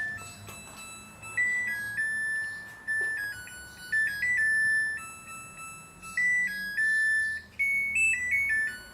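Samsung front-load washing machine's electronic beeper playing its end-of-cycle melody, a tune of thin, pure high notes stepping up and down, which signals that the EcoDrum Clean cycle has finished. The tune stops just before the end.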